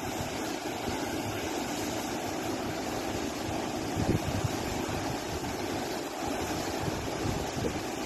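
Steady rush of river water pouring over low rocky waterfalls and rapids, with gusts of wind buffeting the microphone.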